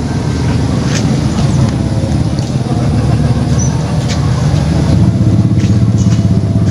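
A motor engine running steadily with a low, even rumble, growing louder about five seconds in.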